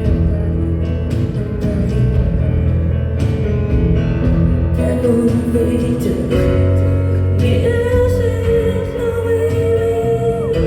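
Live rock-band music with a sustained low bass line; a woman's voice begins singing about halfway through.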